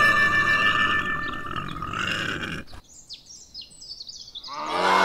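A cow mooing: a long, low call that begins near the end. Before it, a steady sound with held tones fades out a little past halfway, and a few short, high, falling chirps fill the quieter gap.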